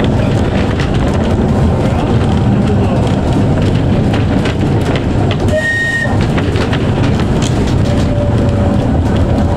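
Electric tramcar running on rail: a steady loud rumble with light clicking from the track. A brief high squeal comes about six seconds in, and a steady whine sets in at about eight seconds.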